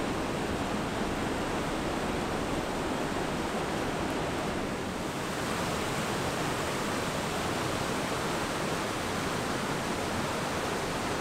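Steady, even rush of a river's flowing water, a continuous hiss with no breaks.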